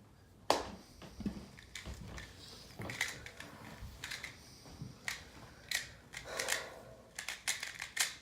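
Rubik's cube being turned and handled: irregular plastic clicks and knocks, a few a second, with a short rubbing sound about six seconds in.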